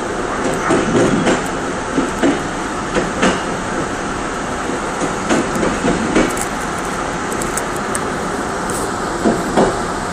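Korail Mugunghwa-ho passenger train heard from inside its rear car: a steady running rumble, with the wheels clacking over the track several times in quick pairs as it enters the station tracks.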